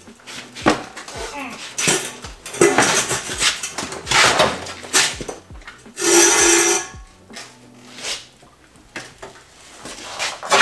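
Irregular metal clanks, knocks and scrapes as the snow bike is lifted down off its bike stand, with one louder harsh scrape lasting under a second about six seconds in.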